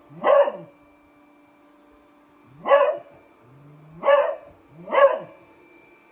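A beagle barking four times at irregular intervals, over the faint steady hum of a robot vacuum cleaner running.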